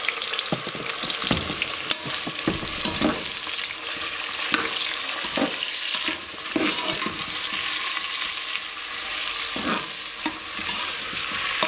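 Sliced onions sizzling in hot ghee and oil in an aluminium pressure cooker, with a steady frying hiss. A slotted spatula stirs them, scraping and knocking against the pot now and then.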